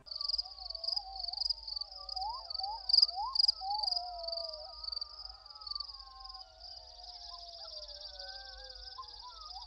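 Crickets chirping in a steady, high, pulsing trill, with lower calls that rise and fall from other night creatures. It is a night-ambience sound effect standing in for an unanswered question: the 'crickets' silence gag.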